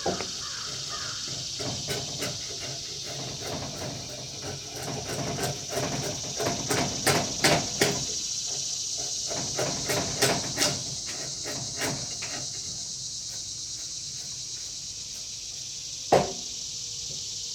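Hatchet chopping into a pine beam, hewing away the wood between saw kerfs: a run of sharp irregular strikes in the middle, then one more blow near the end.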